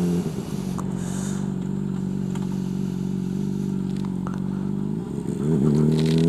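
Honda CBR600RR sport bike with a Two Brothers slip-on exhaust running at low, steady revs while it rolls slowly through a U-turn. About five seconds in the revs waver, then climb as the bike pulls away.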